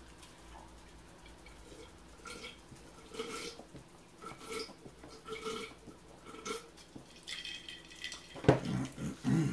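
Close-up chewing and wet lip-smacking of people eating breaded fish sticks, a chew about once a second, with louder mouth noises near the end.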